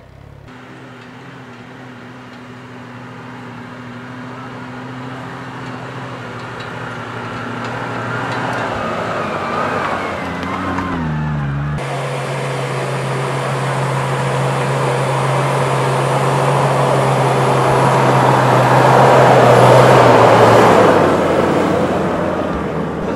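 Off-road 4x4 engines running at low speed on a dirt trail. The sound grows steadily louder as a Toyota Land Cruiser approaches and passes close by, loudest with engine and tyre noise near the end. The engine note shifts in pitch about ten seconds in, and the sound changes abruptly twice, about half a second in and again about 12 seconds in.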